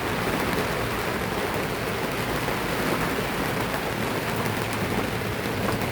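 Heavy tropical rain pouring down on a sailboat, a steady, even hiss of rain with no let-up.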